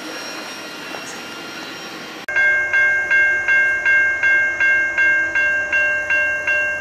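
Railroad grade crossing warning bell ringing in rapid, even strokes, about three a second, signalling an approaching train. Before it, about two seconds of rolling noise from the tail of a passing freight train, which breaks off abruptly.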